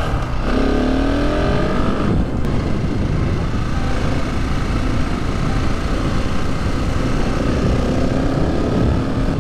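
Husqvarna 701 Supermoto's single-cylinder engine pulling under acceleration, revs rising for about a second and a half, then a brief break at a gear change. It then runs on at steady speed, with revs climbing gently again near the end, over steady wind rush.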